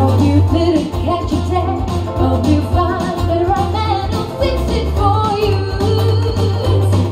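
A woman singing a slow song into a microphone over acoustic guitar, played live through a small PA.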